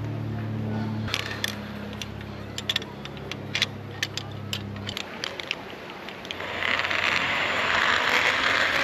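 Metal clicks and clinks of carabiners and a zipline trolley being handled on a steel cable, over a low steady hum that stops about five seconds in. From about six and a half seconds in comes a louder, steady rushing hiss as the trolley runs along the cable.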